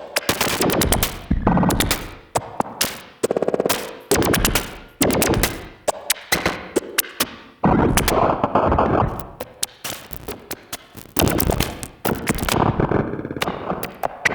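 Bugbrand Chirper modular synthesizer playing a jumpy 'hiccup' rhythm: four modulated voices switching at the same rate, heard as sharp bursts that start suddenly and die away at uneven spacing, chopped by a heavy glitch effect from a Hologram Microcosm. Longer noisy washes swell in a little past the middle and again near the end.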